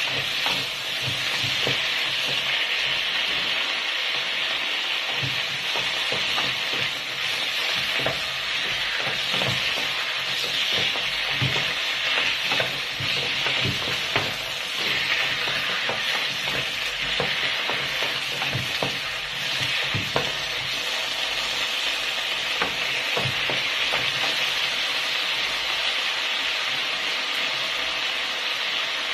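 Choy sum stir-frying in a pan: oil sizzling steadily, with the spatula scraping and tapping against the pan at irregular intervals as the greens are tossed.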